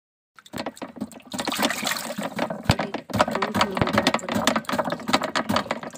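Magur (walking catfish) thrashing in shallow muddy water in a plastic tub: a busy run of splashes and sloshes that starts about half a second in and eases off near the end.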